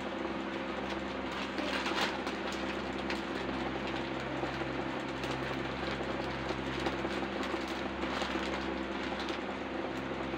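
Steady machine hum, several even tones under a constant hiss, as from a motor running continuously; a brief louder swell of noise about two seconds in.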